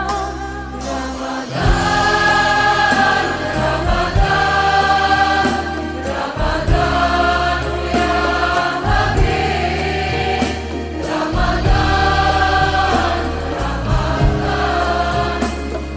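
Music: a song with a lead singing voice and layered backing vocals over a steady bass and a drum beat.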